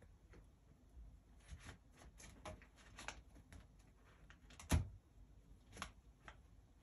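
Sphynx cat settling into a round corrugated-cardboard scratcher bed: a run of soft scratchy rustles and clicks, then a single sharper knock a little past halfway and a lighter one soon after.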